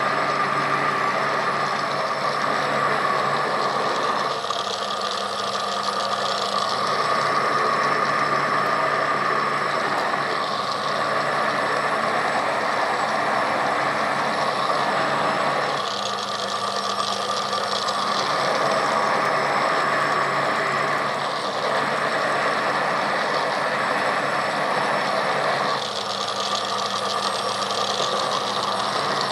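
Philips HR7776 food processor's 1300-watt motor running steadily, turning the citrus-press cone to juice orange halves. Its sound shifts every five or six seconds as each orange half is pressed down onto the spinning cone and lifted off.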